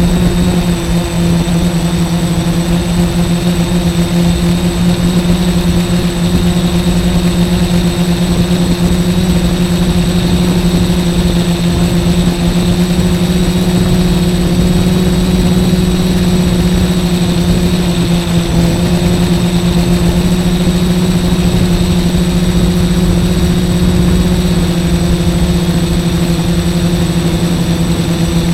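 F450 quadcopter's electric motors and propellers giving a steady, even hum in flight, with a low rumble underneath.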